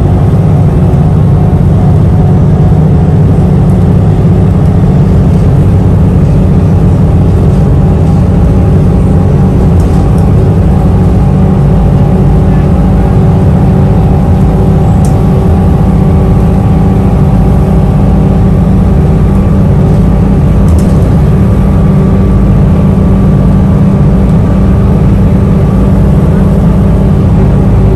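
Steady low rumble of a moving city bus heard from inside the cabin: engine and road noise with a steady hum running over it.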